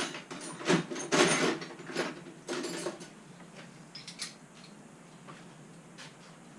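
Scooter parts and tools being handled: a quick run of clicks and knocks in the first three seconds, then a few faint ticks.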